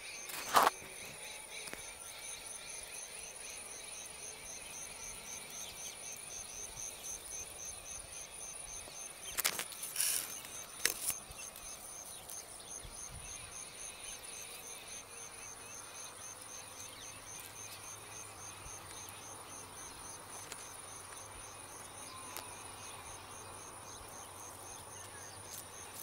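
Insects trilling steadily in the grass: two high, thin tones, one of them a rapid pulsing. A few sharp clicks break in about half a second in and again around ten seconds in.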